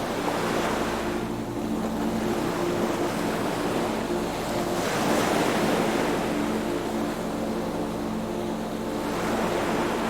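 Sea waves washing in, swelling and fading about three times, over soft sustained low music notes.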